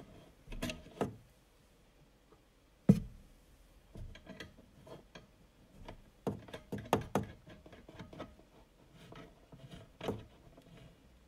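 Irregular small clicks and light knocks as a knurled brass thumbscrew nut and washer are fitted and hand-tightened onto the threaded end of a steel hook clamp through a wooden cabinet panel. The sharpest knock comes about three seconds in, with a quick run of clicks a little past the middle.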